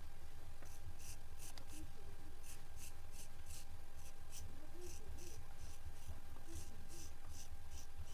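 Straight razor scraping hair off a wetted scalp in short, quick strokes, about two or three a second, starting a little under a second in.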